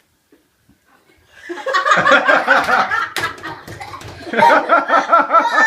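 Laughter in two long runs of quick, rhythmic bursts, starting after about a second and a half of near silence, with a sharp click about three seconds in.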